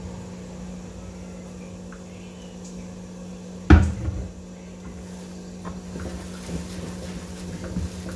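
A single sharp knock about three and a half seconds in as the oil bottle is set down, over a steady low hum. Smaller handling ticks follow as burger buns are laid on the iron griddle near the end.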